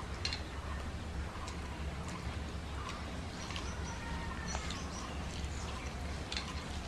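Eating by hand: scattered small clicks and smacks of chewing and of fingers working rice and curry on the plates, over a steady low hum.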